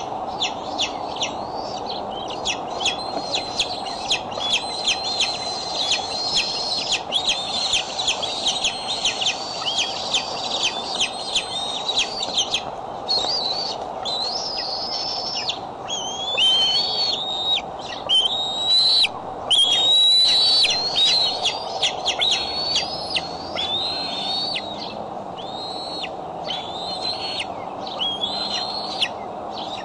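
Bald eagles calling at the nest: first a fast run of short, high chirps, then louder, longer piping calls that bend up and down in pitch, loudest around the middle. A steady hum runs underneath.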